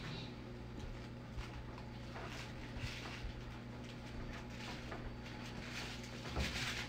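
Faint rustling and a few soft taps, with a louder rustle near the end, over a steady low hum.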